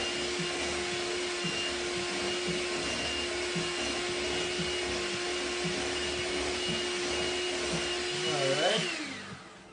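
Electric hand mixer running steadily at low speed, its beaters whirring in a glass bowl of ice cream mixture, with a constant motor hum and a high whine. About nine seconds in it is switched off and winds down, the whine falling in pitch as it stops.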